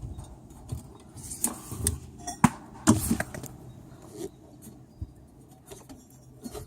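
Irregular metallic clinks and knocks of hand tools and shock absorber parts being handled, the sharpest about two and a half and three seconds in.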